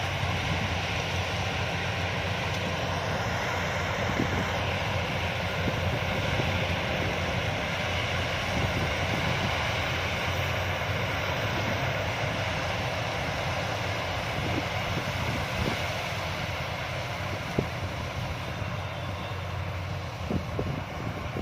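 Yanmar YH850 combine harvester running steadily, a continuous engine and machinery drone, with a few short knocks near the end.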